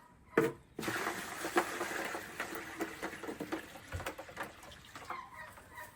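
A single knock, then water poured out in a steady splashing stream for about four seconds before it tails off.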